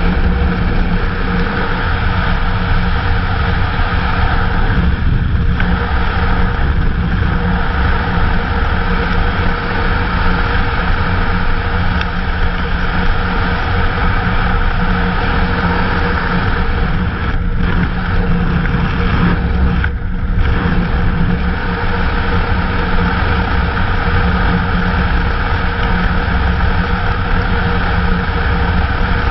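Kawasaki KLR single-cylinder motorcycle engine running steadily at road speed while riding, with a steady rush of noise. The sound dips briefly a few times.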